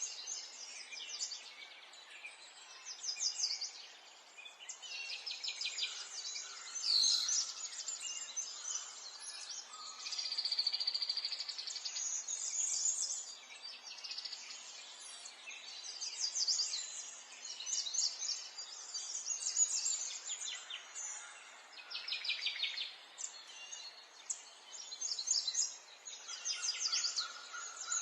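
Many small birds chirping and trilling at once, overlapping calls and quick rattling trills with no pause, over a faint steady background hiss.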